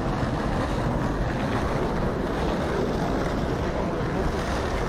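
Steady outdoor wind noise buffeting the microphone, a continuous low rumble with a general hiss of open-air ambience.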